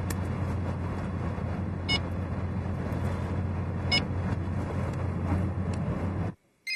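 Steady engine hum and road noise inside a moving car's cabin, with two short electronic beeps about two seconds apart from a mobile phone's keys being dialled. The sound cuts off suddenly about six seconds in.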